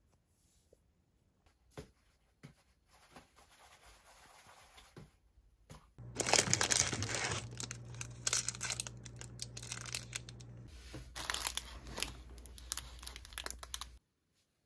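Crinkling, rustling handling noise, faint at first, then much louder and busier about six seconds in, over a low steady hum, and stopping abruptly near the end.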